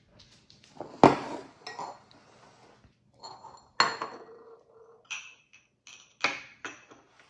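Kitchen bowls and utensils being handled and set down on a counter: a handful of separate clinks and knocks, the loudest about a second in, one a little before halfway ringing briefly like glass.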